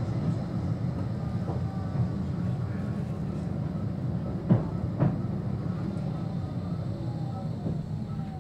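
Blackpool tram running on its rails, heard from inside the car: a steady low rumble, two sharp knocks about half a second apart midway, and a faint falling whine near the end as the tram slows for traffic lights.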